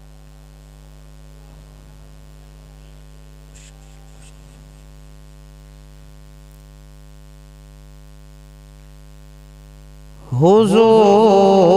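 Steady electrical hum from the sound system for about ten seconds, then a man's voice comes in loud, singing a devotional naat line.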